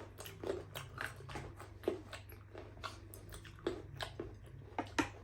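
Close-up eating sounds: chewing and mouth smacks, a scatter of short soft clicks. A faint low steady hum runs underneath.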